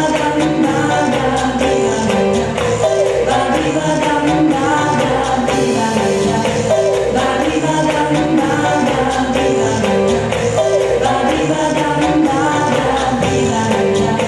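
Cha-cha dance music with a sung vocal over a steady Latin beat.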